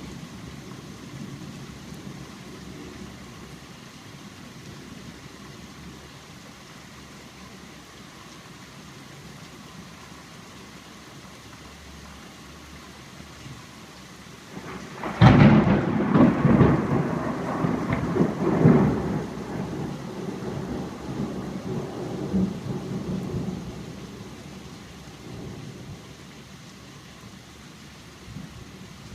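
Steady rain falling, with a sudden loud clap of thunder about halfway through that rumbles on for several seconds before fading.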